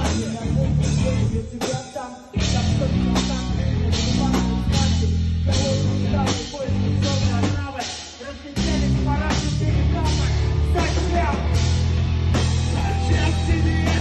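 Rock band playing live: a singer on a microphone over bass guitar and a Tama drum kit. The band drops back briefly about two seconds in and again about eight seconds in, then comes back in full.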